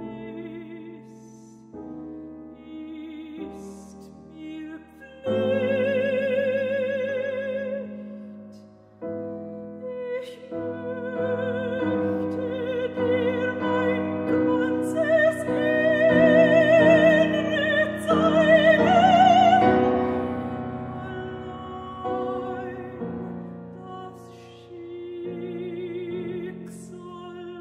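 Soprano singing a German art song with piano accompaniment, her voice carrying a marked vibrato. It grows to a loud climax around the middle and falls back to a quieter close.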